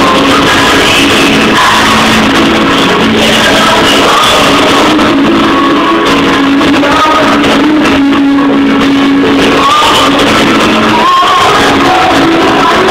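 Live pop ballad played loud over a concert sound system: a woman singing over a band with guitar, recorded on a phone's microphone in a large arena hall.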